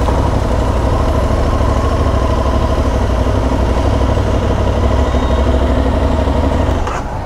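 A vehicle engine running steadily at low revs, with a deep rumble. It cuts off abruptly about seven seconds in.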